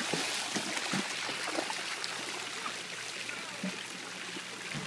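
Steady rush of running water with a few light splashes of small children's feet wading through shallow pool water.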